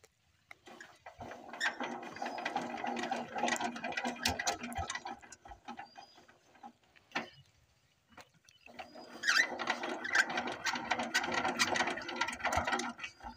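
Single-cylinder diesel engine of a two-wheel power tiller being hand-cranked in two spells of about four to five seconds each, a fast mechanical clatter that builds and then stops, with a short pause between the attempts.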